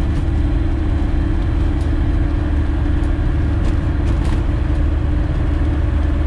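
Comco Ikarus C42 ultralight's engine and propeller running steadily at low power while the aircraft taxis, heard from inside the cockpit.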